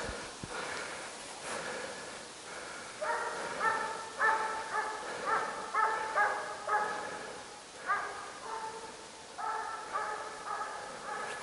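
Young hounds giving tongue: a quick run of short, held baying calls, several a second, starting about three seconds in with brief pauses. It is the cry of hounds running a raised hare.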